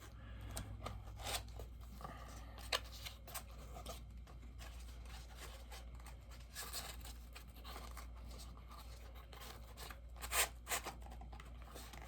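Packaging handled while a bobblehead is unboxed: scattered rustles, scrapes and small clicks, with a couple of sharper clicks about ten seconds in.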